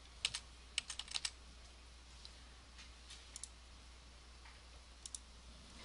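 Computer keyboard keystrokes: a quick run of about five key presses in the first second and a half, then a few fainter clicks later on.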